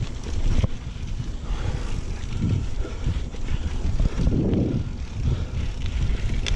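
Wind rumbling on a GoPro's microphone as a mountain bike is ridden along a dirt trail, with scattered knocks and rattles from the bike over the ground.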